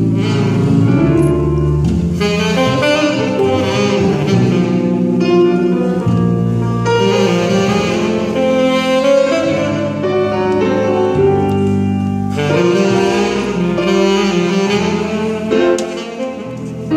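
Live jazz played by a saxophone leading the melody over grand piano and electric bass guitar.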